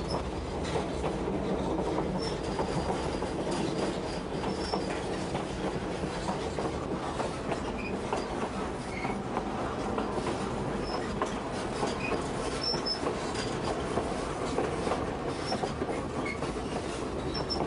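White Pass & Yukon narrow-gauge passenger train running along the track: a steady rumble of wheels on rails, with faint clicks and several brief, high wheel squeals.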